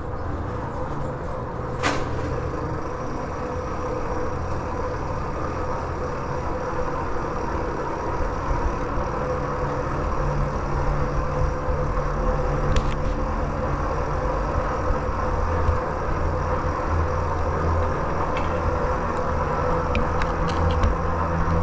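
Steady rumbling of a vehicle riding through a concrete storm-drain tunnel, with a sharp click about two seconds in and a few short rattles near the end.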